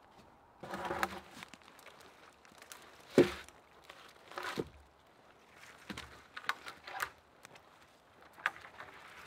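Footsteps crunching through dry leaf litter and twigs, with wooden knocks as log poles are handled against a pole shelter frame; the loudest knock comes about three seconds in.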